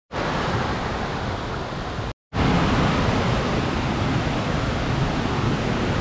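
Steady rush of white water over the rocks of a stream's rapids. It cuts out for a moment about two seconds in, then comes back louder.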